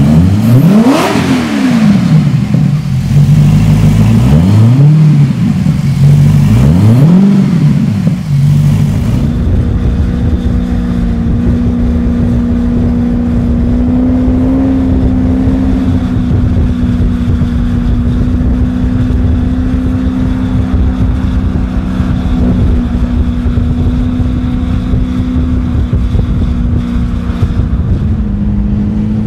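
Lazareth LM847's Maserati V8 engine revved three times, each rev rising and falling in pitch, then running at a steady note as the bike is ridden along.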